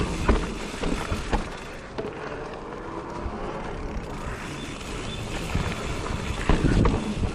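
2020 Giant Reign E+ 1 Pro electric mountain bike rolling over a dirt trail, its frame and parts rattling, with several sharp knocks over bumps, the loudest cluster near the end.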